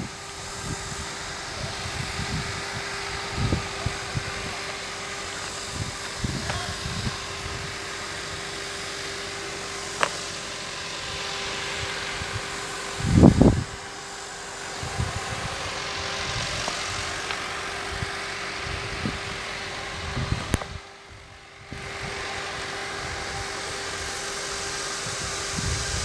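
Steady hum and noise of sand washing plant machinery running, with one constant tone, broken by scattered short low thumps. The sound briefly drops away about three quarters of the way through.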